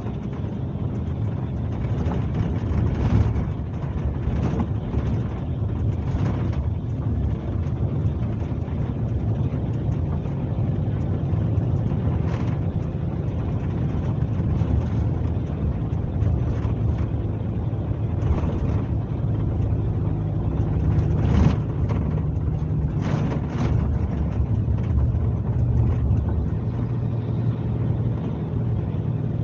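Scania K370C coach's diesel engine running steadily under way, heard from inside the bus, with a few short knocks or rattles; the engine note shifts slightly about two-thirds of the way through.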